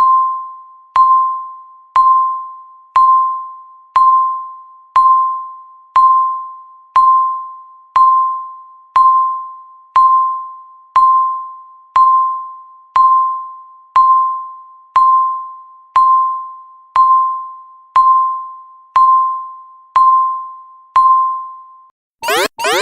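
Electronic countdown-timer beep, one short pitched tone each second that fades after it sounds, about twenty-two beeps in all. Near the end the beeps stop and a loud alarm of rapid rising electronic sweeps starts, signalling that the countdown has reached zero.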